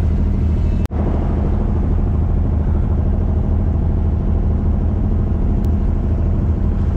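Abra water taxi's inboard diesel engine running steadily underway, a low, even drone, with a momentary break about a second in.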